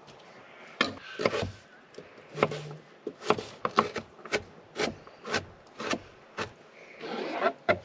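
Knife chopping vegetables on a cutting board: a series of sharp knocks, a few scattered at first, then a steady run of a bit under two a second.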